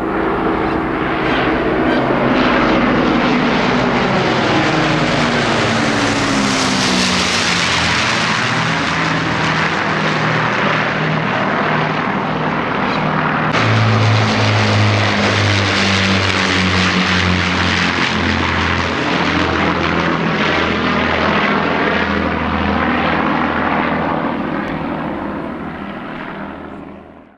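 Propeller-driven WWII aircraft of the Battle of Britain Memorial Flight, an Avro Lancaster bomber with a fighter in formation, flying past low. The drone of their piston engines falls in pitch as they pass overhead. About halfway through, after a cut, a deeper engine drone from another pass takes over and fades out at the end.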